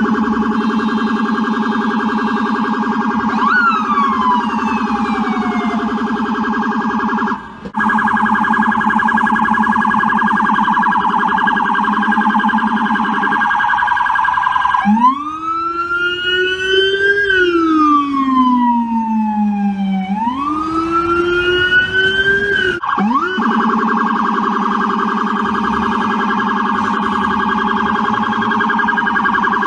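NYPD police car siren sounding a rapid warbling tone, with a short upward swoop that falls away a few seconds in and a brief dropout. About halfway through it changes to a slow wail that rises, falls and rises again, then goes back to the rapid warble.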